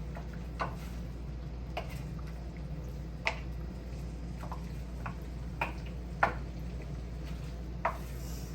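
A utensil clinking and tapping against a pan at irregular intervals, about one click a second, some with a brief ring, as chicken is stirred and coated in thick Panang curry sauce, over a steady low hum.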